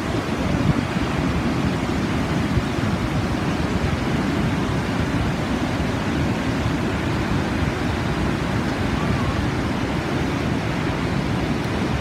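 Large waterfall's steady rush of heavily plunging water, a deep, unbroken roar.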